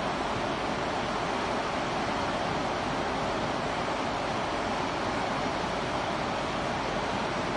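Waterfall: a steady, unbroken rush of falling water that stays even throughout.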